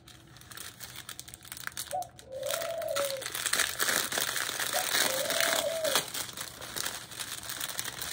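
Small plastic bags of diamond-painting drills crinkling as they are picked up and handled, louder in the second half. A bird calls twice in the background, a short rising-then-falling call each time.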